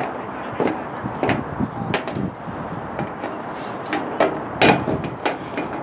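A string of about a dozen sharp, irregular knocks and taps over a steady outdoor rush of noise.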